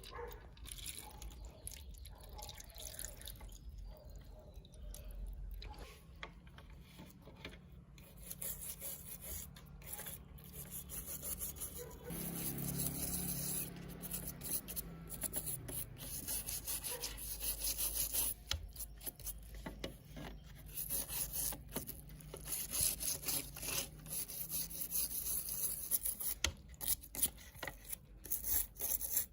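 Rapid, repeated rubbing and scraping strokes against a small hard part, growing denser near the end.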